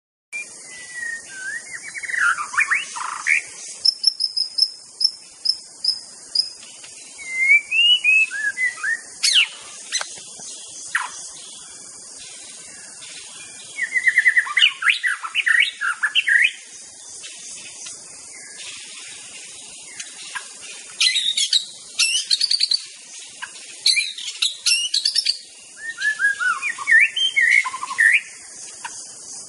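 White-rumped shama singing: varied phrases of clear whistles, rising and falling slides and quick trills, in bursts of a few seconds with short pauses between, over a steady high hiss.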